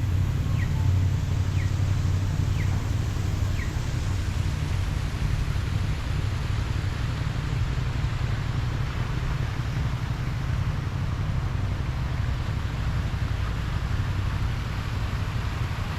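Steady low rumble of city street traffic. In the first few seconds there are short high chirps about once a second.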